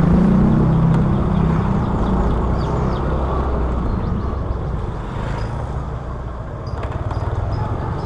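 Motorcycle engine running steadily at low road speed, heard from the bike itself, with road and wind noise. The engine is strongest in the first couple of seconds and dips slightly towards the end.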